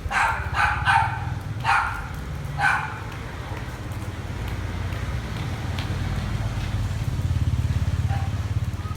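A dog barking about five times in quick succession, then falling quiet, over a steady low rumble.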